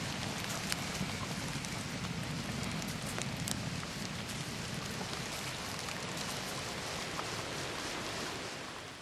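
Steady rain falling, with scattered ticks of single drops, fading out near the end.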